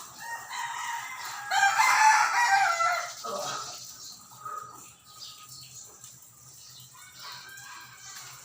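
A rooster crowing once, a long call of about three seconds that ends with a falling tail, followed by fainter short calls.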